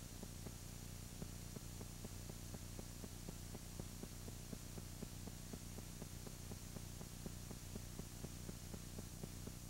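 Faint steady low hum and hiss with small irregular crackling ticks: the blank audio of a videotape after the recorded programme has ended.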